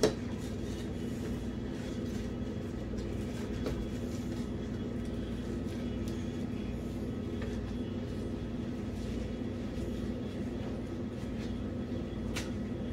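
A steady low mechanical hum, with faint scattered clicks and one sharper click near the end.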